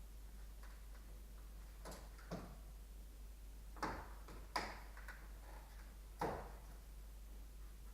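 Five sharp, irregularly spaced clicks and knocks of hand tools and fasteners being handled while screws and trim are taken off a pickup's front end, the loudest two in the second half.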